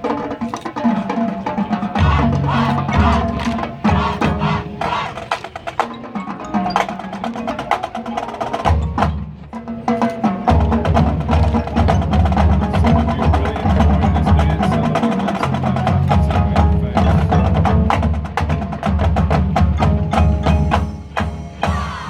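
High school marching band playing: brass over percussion with many rapid strokes. Low brass chords come in about two seconds in, break off briefly near the middle, and return for the second half.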